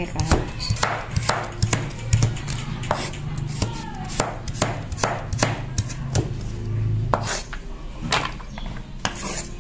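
Steel cleaver chopping a carrot into sticks on a wooden cutting board: a run of sharp knocks of blade on wood, about two a second.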